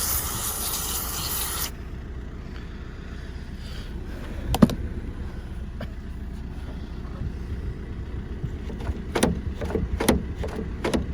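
Work on a van's rear door lock mechanism: a steady hissing, scrubbing noise cuts off sharply after about a second and a half, then a single sharp click, and several metal clicks and knocks near the end.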